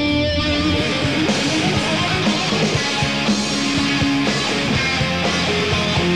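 Rock music: an electric guitar melody with sustained notes, joined about a second in by drums and cymbals keeping a steady beat.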